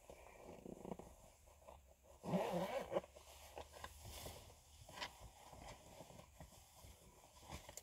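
Faint rustling and light clicks of small items being handled and put away, with one louder scratchy rasp lasting under a second about two seconds in.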